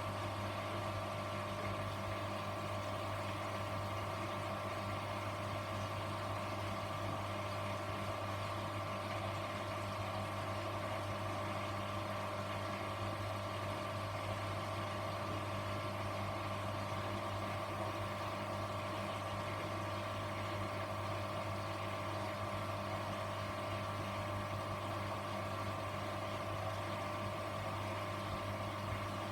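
Grundig washing machine running with a steady low hum and a higher whine, unchanging throughout.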